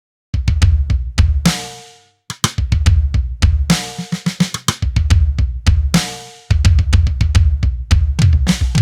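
A drum loop of kick, snare, hi-hats and cymbal, run through Roar saturation presets that add grit and distortion. About two seconds in the beat cuts out briefly and starts again, and it fades and restarts once more past the six-second mark.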